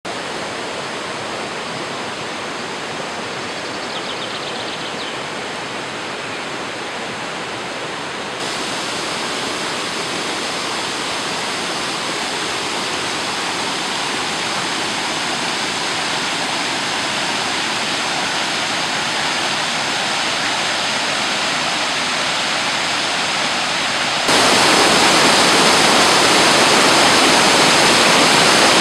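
Steady rushing of flowing water from streams and small cascades. It steps up a little about eight seconds in and becomes much louder and brighter near the end, at a small waterfall tumbling beside wooden steps.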